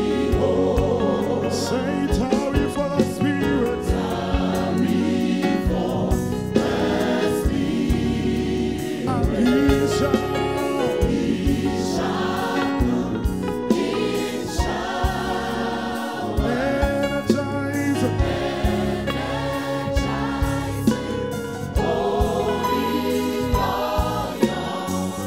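Gospel choir singing an old Pentecostal hymn live at microphones, over band accompaniment with a steady beat.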